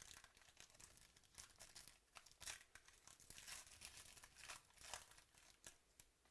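Faint crinkling and tearing of a 2018 Chronicles Baseball trading-card pack wrapper as it is opened and the cards handled, a run of small crackles that stops near the end.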